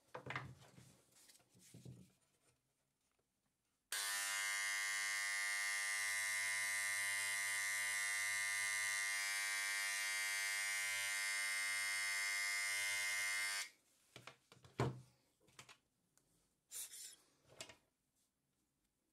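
Hand-held vibrating scribe (engraving pen) running steadily for about ten seconds as its tip chips away the rock around a trilobite fossil: an even, buzzing hum that starts and stops abruptly. A few light clicks and knocks before and after it.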